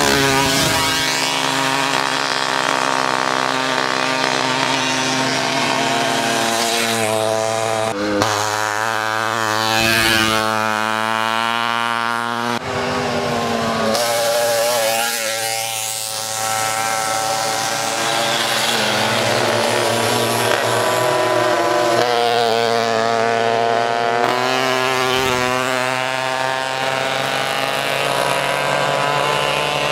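Several small moped engines running hard together, their pitches overlapping and rising and falling as they rev and ease off.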